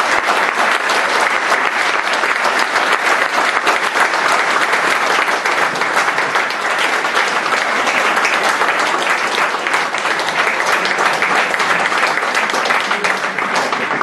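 An audience clapping steadily in a hall, sustained applause that stops abruptly near the end.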